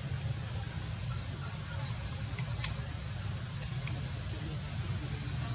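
Steady low outdoor rumble, with faint high chirps and one sharp click about two and a half seconds in.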